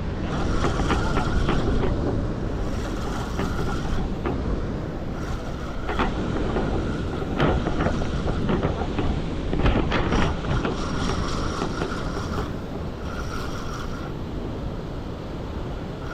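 Wind buffeting the microphone over open water, with a fishing reel being cranked in on-and-off spells of whirring while a hooked fish is played.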